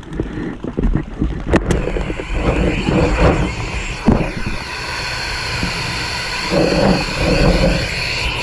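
Wind buffeting and handling rumble on a body-mounted camera's microphone as the player shifts behind an inflatable paintball bunker, with a few sharp pops about a second and a half in and again near four seconds.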